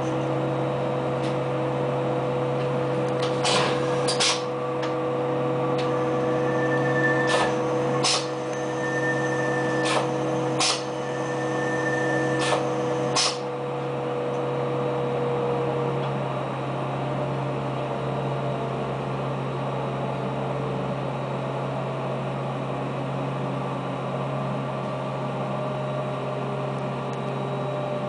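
Diesel railbus heard from inside the passenger cabin, its engine running with a steady low hum as the train slows to a stop and stands. A steady whine fades out about halfway through. A handful of sharp clacks, several in pairs, come in the first half.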